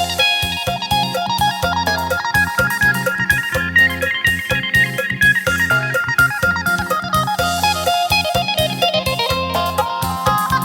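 Lam sing band music: an electric phin plays a fast run of plucked notes over a steady bass line and drum beat.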